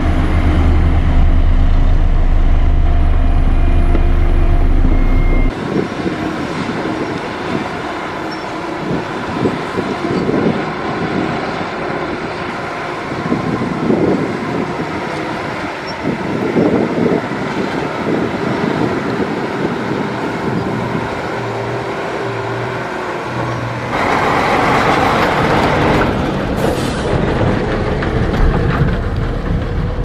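Heavy diesel dump trucks and earthmoving machinery running on a dirt site, with the sound changing abruptly about five seconds in and again near the end. Through the middle, a loaded Hyundai 25-ton dump truck drives past.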